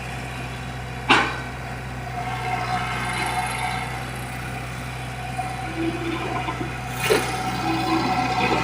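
Diesel engine of heavy equipment idling steadily, with two sharp knocks: one about a second in and one near the end.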